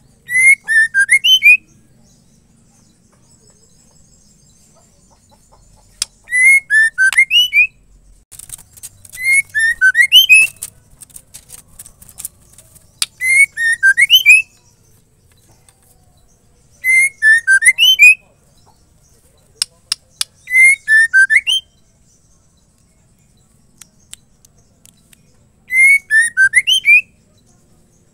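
Female white-rumped shama (murai batu) calling: seven short bursts of quick whistled notes that rise and fall, each about a second long and a few seconds apart, with a few sharp clicks in between.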